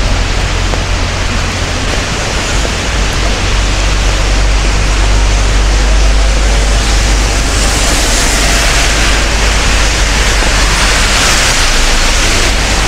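Steady hiss of heavy rain and traffic on a wet city street, over a constant low rumble. The hiss swells for a few seconds about eight seconds in.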